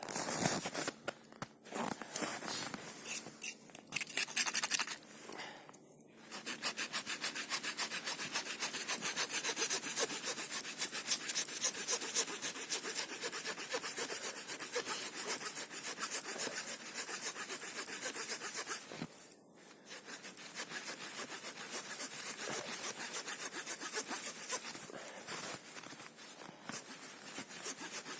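Small folding wood-saw blade of a Victorinox Rangerwood 55 pocket knife cutting a branch with quick, even back-and-forth strokes. The strokes start after a few seconds of irregular knocks and handling and pause briefly about two-thirds of the way through.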